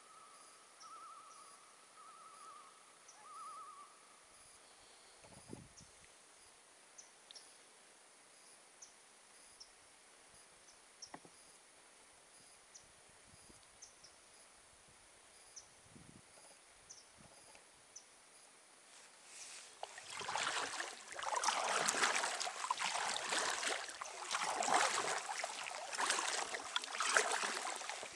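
Very faint ambience with a brief high pulsing trill and a few small ticks. About two-thirds of the way in, kayak paddle strokes start splashing in the water and continue irregularly.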